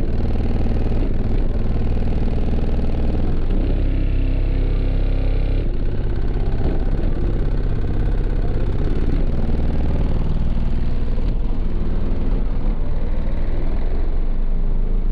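Car audio subwoofers playing loud, bass-heavy music, heard from just outside the truck's closed windows.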